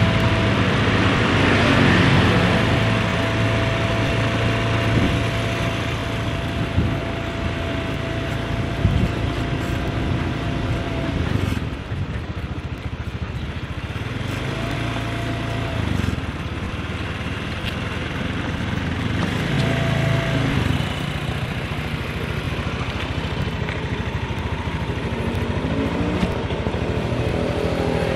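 Motorcycle engine running at low speed, with road and wind noise over it. A thin steady whine runs through about the first ten seconds and comes back briefly twice.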